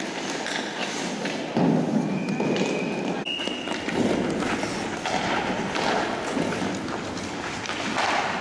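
Ice hockey play on a rink: skate blades scraping the ice and sticks and puck clacking, with a loud thud about one and a half seconds in and two brief high tones a moment later.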